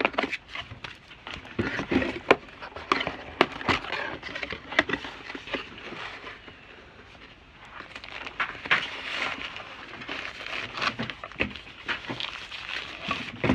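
Camera packaging being handled and opened: cardboard and wrapping rustling, with many sharp clicks and taps, quieter for a couple of seconds midway.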